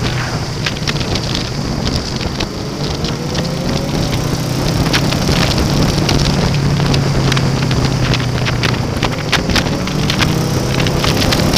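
Honda VFR800 VTEC's V4 engine running at road speed under heavy wind rush on a helmet camera's microphone; the engine note rises twice as the bike pulls away, and the overall level climbs about halfway through.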